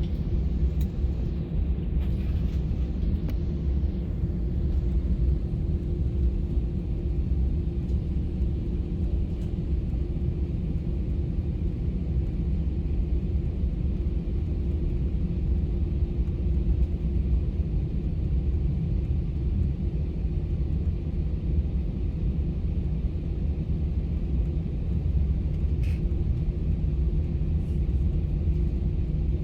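Airbus A320 cabin noise from a passenger seat: a steady low rumble of the jet engines and airflow with a faint even hum, holding level throughout.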